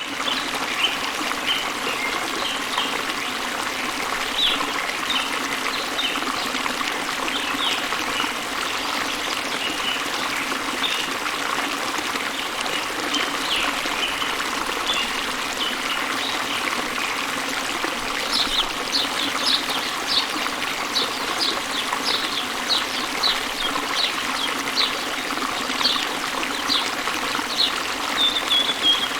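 Waterfall: water running and splashing steadily, with short high chirps scattered over it that come more often in the second half.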